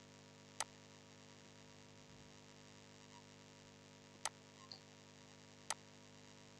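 Near silence with a faint steady electrical hum, broken by three soft computer-mouse clicks: about half a second in, a little after four seconds, and near the end.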